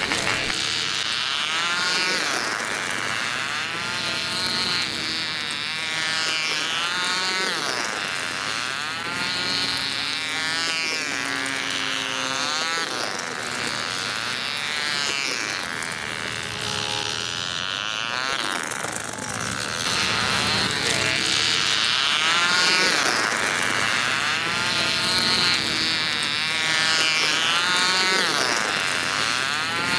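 Miniature diesel engines of 1950s rail-track model racing cars running at high revs with a high-pitched buzz. Its pitch swoops up and down every second or two as the cars lap the circuit.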